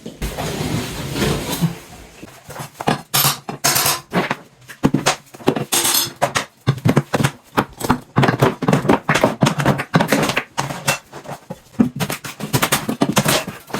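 Hand tools working along a baseboard: a quick, irregular run of metallic clicks, taps and scrapes as the caulk line is cut and the baseboard is worked loose from the wall.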